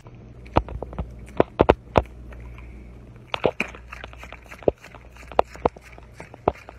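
A dog's jaws snapping and clacking shut as it bites at a treat held in someone's fingers, in sharp irregular clicks, several in quick succession.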